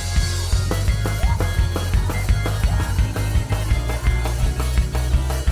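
Church band playing upbeat praise music, with drums and a heavy bass line keeping a steady beat.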